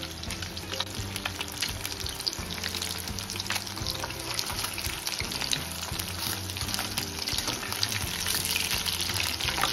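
Fish pieces deep-frying in hot oil in a wok, a steady, dense crackling sizzle, the oil kept on a high-to-medium flame.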